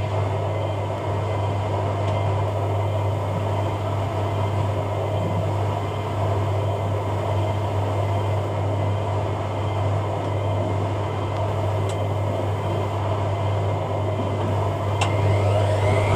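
Hoover A3786 Logic 1200 washing machine on its spin cycle, the drum turning at a steady speed with a steady low hum. A click sounds near the end, and just at the end a whine starts to rise as the spin speeds up.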